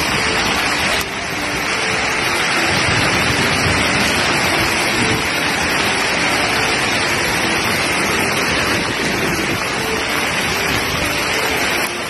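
Hail and heavy rain pelting down on the ground, a dense steady hiss.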